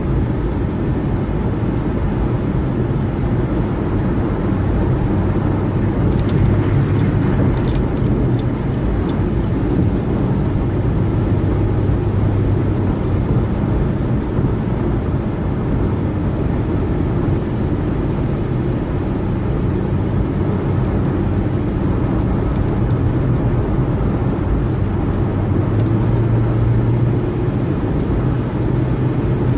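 Car driving at freeway speed: steady tyre and engine road noise, a low drone that holds even throughout.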